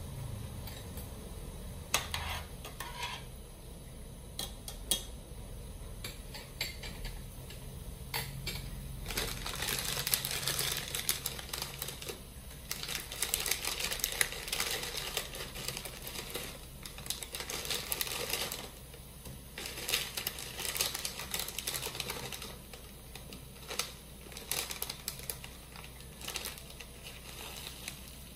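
Plastic Buldak instant-noodle packet crinkling in the hands as it is opened and tipped out over a pot, in repeated crackly stretches. A few sharp clicks come between about two and five seconds in.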